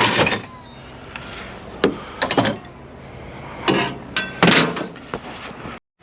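Scrap metal and plastic being handled and tossed: about six separate clanks and rattles over a steady low hum, cutting off suddenly near the end.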